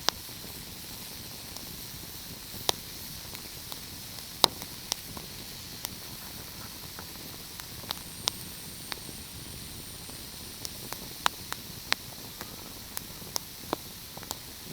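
A fireplace fire crackling, with sharp pops at irregular intervals over a steady hiss. The loudest pop comes about four and a half seconds in.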